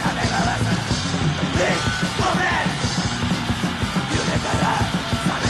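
Japanese noisy hardcore punk from a 1986 demo recording: a dense, distorted wall of band noise with yelled vocals over it.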